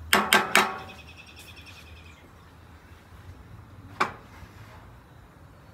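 Metal spatula knocking three times in quick succession against a cast-iron skillet, with a short metallic ring. One more single knock comes about four seconds in.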